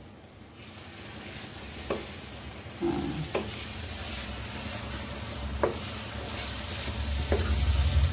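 Masala of onion, green chilli and spices sizzling in a steel kadhai while a metal spatula stirs it, with a few sharp clicks of the spatula against the pan. The sizzle grows slowly louder.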